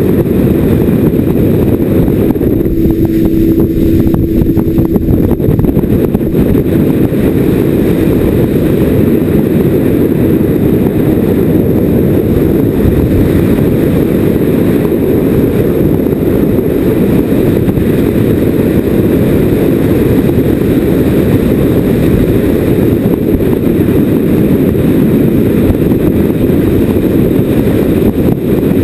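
Steady rush of wind on the microphone and engine and hull noise from a center-console fishing boat running at speed over open water, heavy and low.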